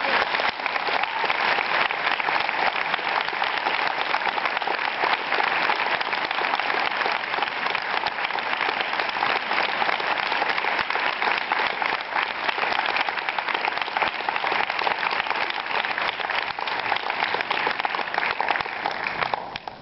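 Audience applause, a dense steady clapping that fades away near the end.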